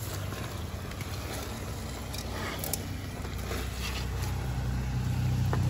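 A low, steady motor hum that grows louder toward the end, with a few faint ticks.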